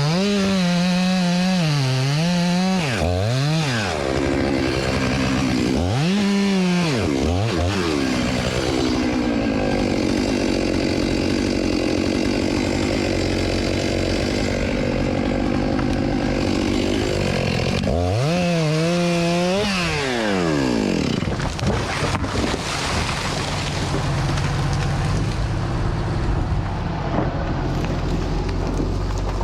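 Gas chainsaw revving up and down in repeated throttle blips, then running steadily at high speed for several seconds as it cuts wood, then revving again. Near the end a lower, steadier engine note carries on.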